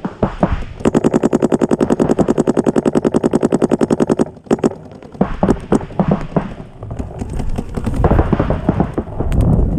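Paintball marker firing a fast, even string of shots, about ten a second, for three to four seconds. After a short gap come scattered single pops.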